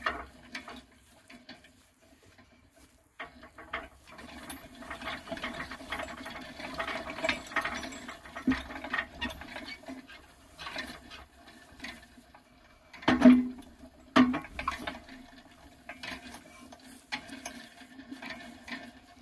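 Homemade scrap-metal portable crane being pushed along by hand: its wheels roll with an irregular rattling and clicking from the steel frame, and two louder knocks come about thirteen and fourteen seconds in.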